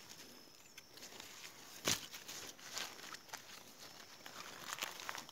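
Leaves and grass stalks rustling and light footsteps as someone moves through a dense maize and millet patch, with a single sharp click about two seconds in.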